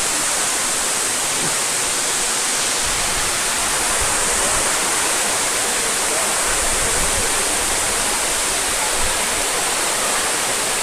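Waterfall: water falling and splashing, a steady, even rush.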